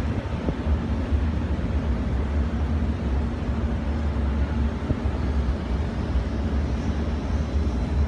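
Outdoor city ambience: a steady low rumble with a faint steady hum underneath.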